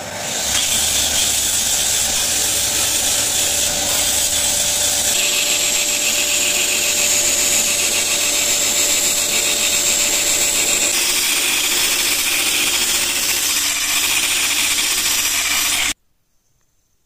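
Belt grinder running with a steel knife blade and its micarta handle held against the sanding belt: a steady grinding hiss that builds about half a second in and cuts off abruptly near the end.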